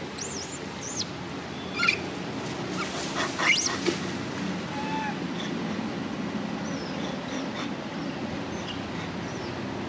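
Young macaque giving several short, high-pitched squealing cries that rise and fall in pitch, the loudest about two and three and a half seconds in, then fainter calls. A steady low background noise runs underneath.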